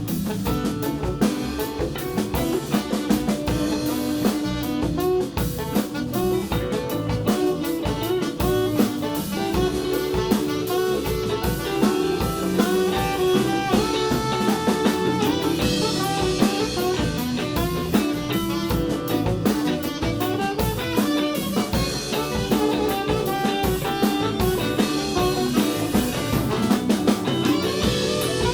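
Live band playing an instrumental passage, with drum kit and guitar to the fore over bass and keys, at a steady groove.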